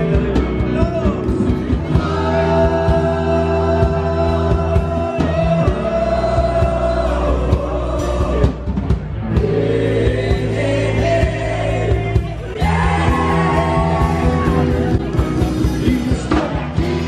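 A live rock band playing, with electric guitars, drums and a lead singer.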